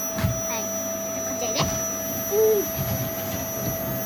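Vacuum cleaner running steadily, its motor giving a constant whine over an even rush of air.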